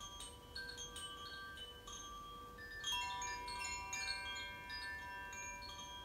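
Hand-held bamboo-tube chime gently rocked, ringing in scattered, overlapping sustained notes. The notes become busier and a little louder about halfway through.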